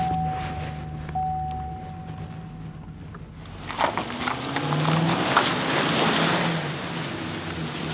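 Pickup truck engines running, with a steady high whine over them for the first three seconds. About three and a half seconds in, an engine revs hard and the tyres spin as the stuck truck is pulled free.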